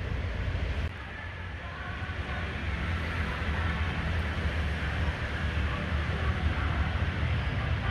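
A motor engine running steadily with a low hum, its sound changing about a second in.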